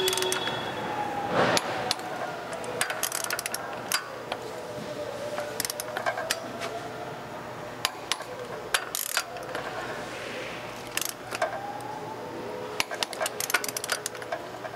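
Ratchet-head torque wrench clicking in several short bursts of rapid ratcheting as flywheel bolts are run down to final torque.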